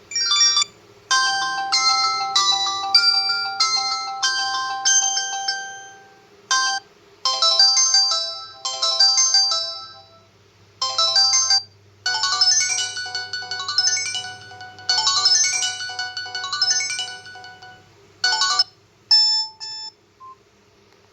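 Samsung GT-E2120 mobile phone playing electronic ringtone melodies: bright, high tunes of quick notes that break off and start again several times. A faint steady hum runs beneath them.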